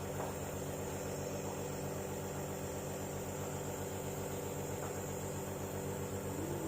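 Steady, even machine hum from a small motor-driven appliance running without change.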